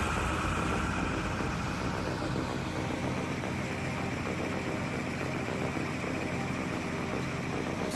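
IFA W50 truck's diesel engine running steadily at a low, even pace.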